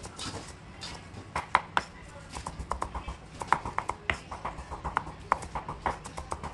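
Kitchen knife chopping and mincing shallots on a round wooden chopping board: a run of sharp, irregular wooden knocks, several a second, starting about a second in.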